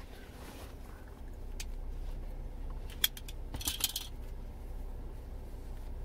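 Light handling noise as a disposable surgical face mask is put on and its ear loops hooked over the ears: a few small clicks and a short crinkly rustle about three and a half seconds in, over a low steady rumble.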